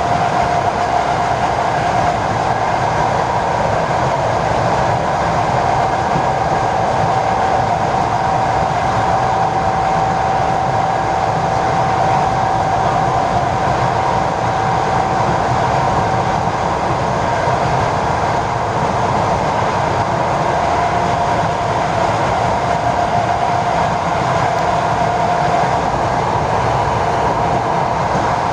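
ED4M electric multiple unit running along the line: steady running noise from the wheels and rails, with a high whine that rises slightly in pitch and then falls back.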